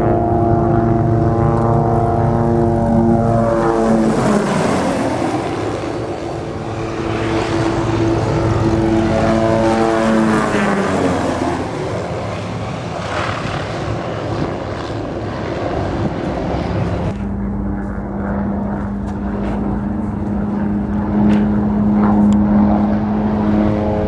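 Light MD 500-type helicopters flying past low: the engine and rotor pitch drops as they pass, about four seconds in and again about ten seconds in. From about seventeen seconds in there is a steady, even drone as one flies nearby.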